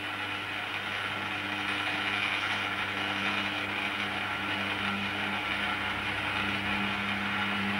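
Automaton mechanism running: a steady mechanical whirr of gears and cams over a low, even hum.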